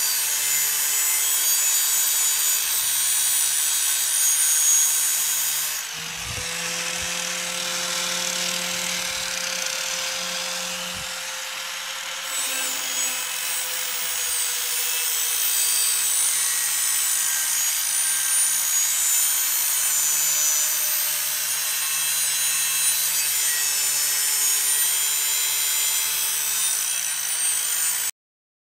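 Electric grinder sharpening lawn tractor mower blades: a steady whine with the hiss of metal grinding. From about 6 to 12 seconds the hiss drops and the whine rises slightly as the grinder spins off the blade, then it bites in again.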